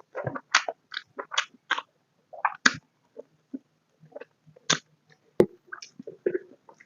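Close-miked chewing with wet lip smacks and mouth clicks: a quick run of smacks in the first two seconds, then sparser chews.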